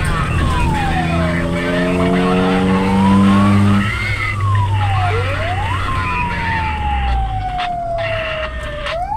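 Fire-brigade vehicle's siren wailing, its pitch sliding slowly up and down over several seconds per sweep. A long steady horn blast sounds from about a second and a half in to about four seconds in, the loudest part, over a constant low engine rumble.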